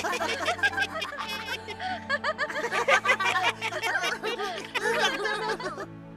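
Several cartoon characters laughing and snickering together over soft background music; the laughter stops near the end, leaving only the music.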